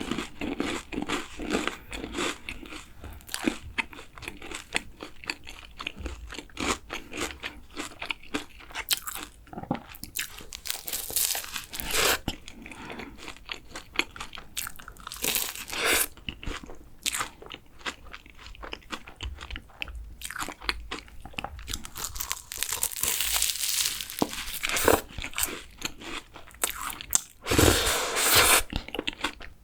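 Close-miked biting and chewing of a fresh cream chocolate croissant: repeated crunching of the flaky pastry, with a few louder bites.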